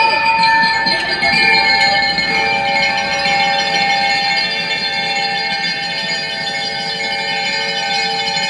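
Bell lyres of a drum and lyre band ringing a long held chord, many metal-bar tones sounding together and ringing on with little drumming.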